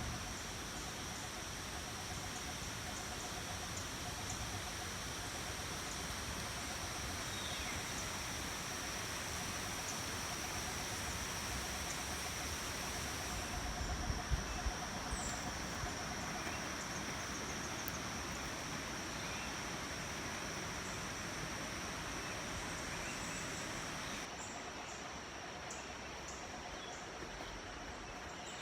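Steady rush of a small hillside stream, with an unbroken high-pitched insect drone over it and a few soft knocks about halfway through.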